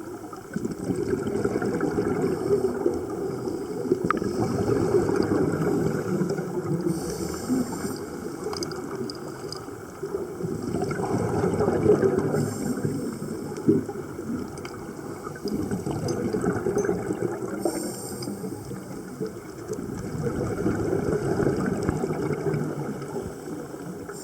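Underwater sound of a scuba diver breathing through a regulator: rumbling, gurgling exhaled bubbles that swell and fade every few seconds, with short hisses of inhalation between them.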